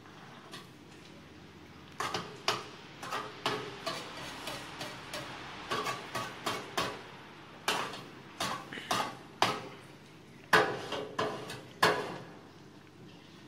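Irregular sharp knocks and clinks of metal cookware: the künefe pan and a utensil being handled on the stove. About twenty strikes, starting about two seconds in and stopping near the end, the loudest towards the end.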